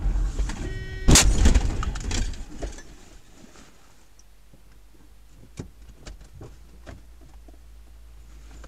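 A car crashing into the side of a 4WD minivan: a brief high tone just before a loud impact about a second in, then the noise dies away to a few small knocks and clicks.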